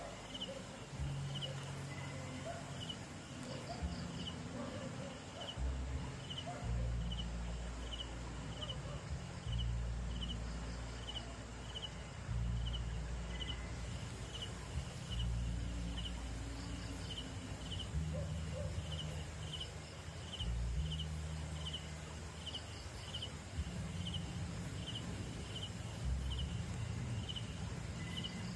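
A cricket chirping steadily, about one and a half short chirps a second, over patchy low rumbling.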